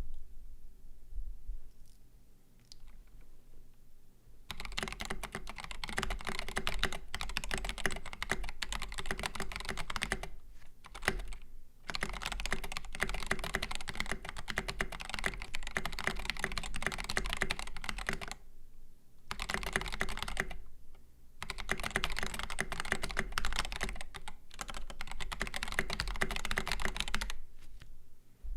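Typing on a Boardsource Mark 65, a 65% gasket-mount keyboard with a polycarbonate case, silver aluminum plate, KAT Milkshake keycaps and stock Durock L2 linear switches. Several runs of rapid keystrokes with short pauses between them, starting about four seconds in.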